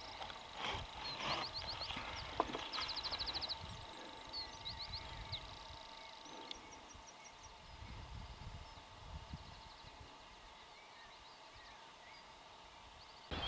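Faint birdsong: several birds chirping, with rapid trills in the first few seconds, over soft low rumbling.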